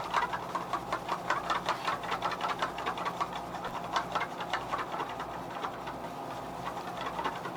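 Paint being stirred with a small mixing stick in a cup, the stick ticking quickly and evenly against the sides, about six or seven taps a second. A faint steady low hum lies underneath.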